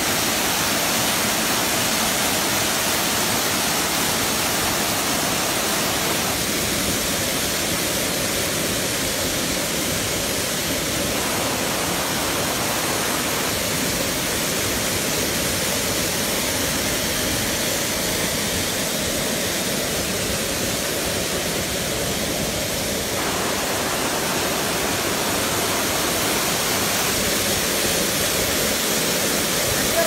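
Waterfall pouring down a rocky cliff into a stream: a steady, loud rush of falling water heard close up.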